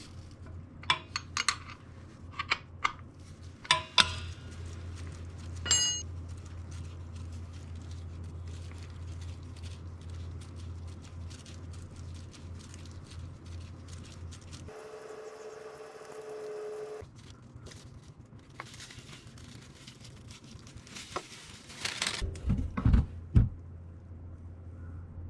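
Scattered metallic clinks and knocks of tools and parts being handled over a steady low hum. A steady mid-pitched whine replaces the hum for about two seconds midway. A burst of louder knocks and rustling comes near the end.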